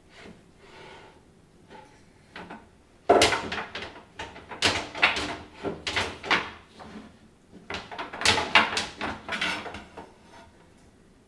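A small child banging and rattling kitchen cabinetry, with repeated sharp knocks and clatters in two bursts: one starting about three seconds in, another near eight seconds.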